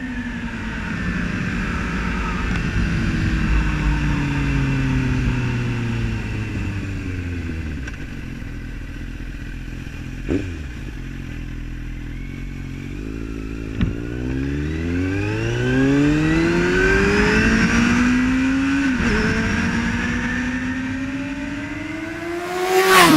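Kawasaki Z800 inline-four through a GPR Furore exhaust with no dB killer, on a flyby. It recedes with falling pitch for the first several seconds and fades, then comes back revving hard, with a brief drop in pitch about 19 s in like a gear change, and climbs to a loud pass at the end.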